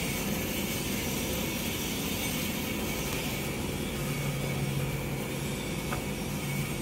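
Steady mechanical running noise with a low hum, even throughout.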